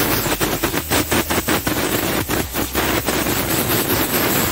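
Compressed air blasting from an air blow gun on a workshop air hose, a loud hiss pulsing rapidly and unevenly as it blows sanding dust off a dented bus body panel.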